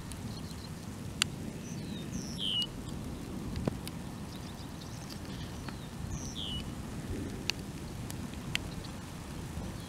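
Steady light rain with scattered drops ticking on a surface. A bird gives a short swooping call twice, about four seconds apart.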